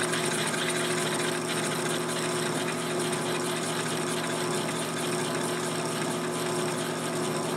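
Drill press motor running steadily while a 7/8-inch Forstner bit is eased slowly down, shaving its way through a plastic pipe coupler.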